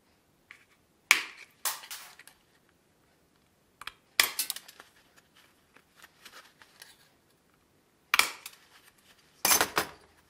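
Hand tin snips cutting thin sheet steel, about 0.8 mm thick: sharp crunching snips come in separate bursts a few seconds apart, two in the first two seconds, one about four seconds in, and two near the end.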